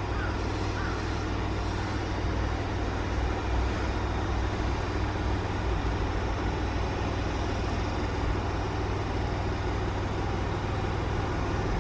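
Keikyu 1500 series electric train standing at the platform with its doors open, its onboard equipment running with a steady low hum under a hiss.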